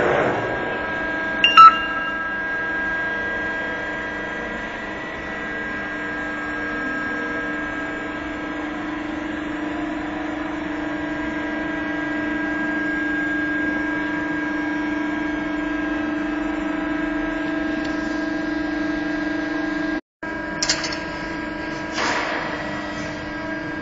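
Steady hum with several fixed tones from the hydraulic power unit of an Amada HFB 125-30 hydraulic CNC press brake, running with the machine switched on. A short, loud beep about one and a half seconds in, and a couple of knocks near the end.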